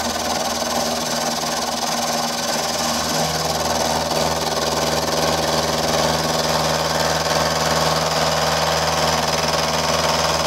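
Milling machine spindle running, its end mill taking a light facing cut across the top of a small engine-cylinder casting: a steady motor hum under an even cutting hiss that grows a little louder partway through.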